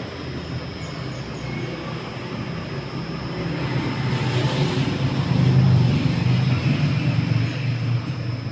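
JETSpin CR-5500 carpet spinner running: its 5.5 HP motor spins the long drum with a steady rumble and whir that grows louder toward the middle.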